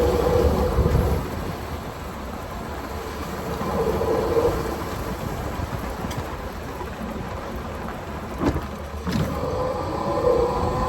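Wind buffeting the phone's microphone on a moving E-Z-GO RXV Elite electric golf cart, a steady rumbling rush, with a whining tone from the cart's drive that wavers and comes and goes. Near the end, two sharp knocks less than a second apart.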